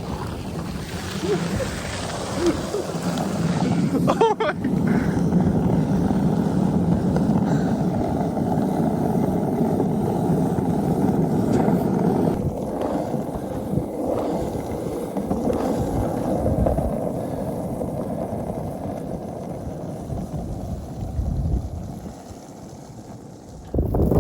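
Skateboard wheels rolling steadily down a snowy road, a continuous rumbling that eases off near the end.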